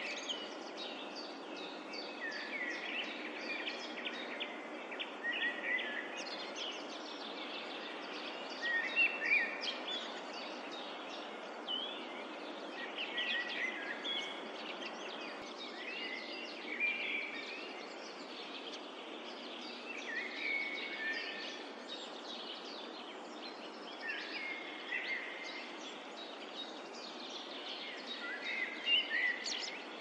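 Small songbirds singing short, repeated phrases every few seconds over a steady background hiss of woodland ambience.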